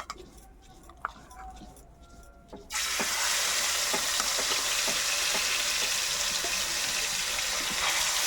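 Marinated biryani meat going into hot oil in a kadai: a few light clinks at first, then about three seconds in a loud, steady sizzle starts abruptly and carries on, with small crackles through it.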